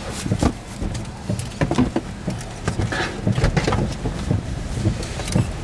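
Rain pattering and tapping irregularly on the car's windscreen and roof, over the car's low rumble.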